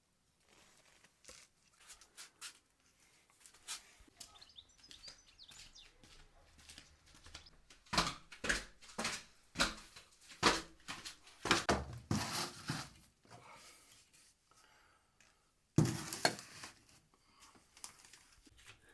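Irregular knocks, taps and rustling from objects being handled, thickest in a run about eight to thirteen seconds in, with a sharp knock about three seconds later.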